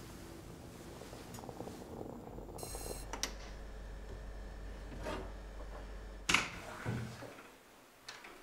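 A stovetop moka pot handled on a gas hob: a sharp clack about six seconds in, with a softer knock just after. A low hum and a few faint clicks come before it.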